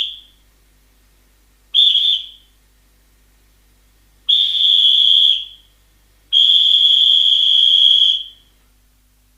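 Referee's whistle blown four times: two short blasts, then a blast of about a second, then a long blast of about two seconds. Each is one high, steady tone.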